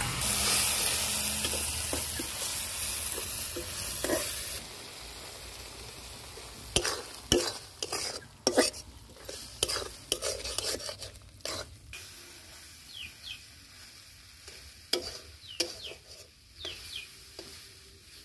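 Curry frying in an iron kadai sizzles hard for about the first four seconds, then dies down. After that a metal spatula scrapes and knocks against the pan as the thick masala is stirred, the strikes growing fewer and fainter near the end.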